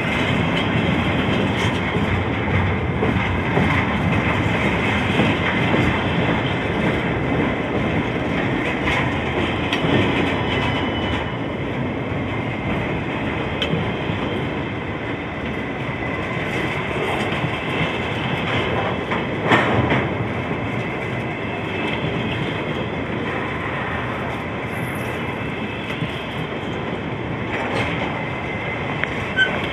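CSX freight train rolling past: a steady rumble of wheels on rail, with scattered sharper clicks, the loudest about twenty seconds in.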